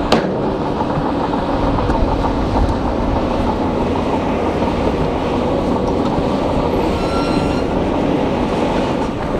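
Shantui crawler bulldozer's diesel engine working under load while its steel tracks clank and grind, pushing a pile of rock and dirt. A sharp knock comes right at the start, and a brief high squeak about seven seconds in.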